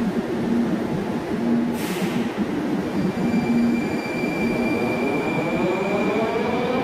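A Moscow metro train running between stations with a steady rumble of wheels on rail. A brief hiss comes about two seconds in. A high, steady wheel squeal sets in at about three seconds, and a whine rises in pitch near the end.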